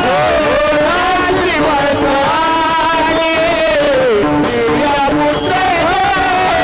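A chorus of male voices singing a line of a Marathi devotional abhang together, with wavering, drawn-out notes. Small brass hand cymbals (taal) clash along with them over a steady held note underneath.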